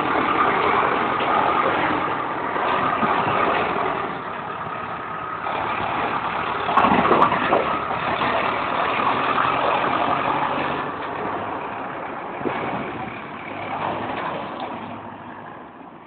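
Case tractor's diesel engine running as the tractor drives off, louder for a moment about seven seconds in, then fading as it moves away.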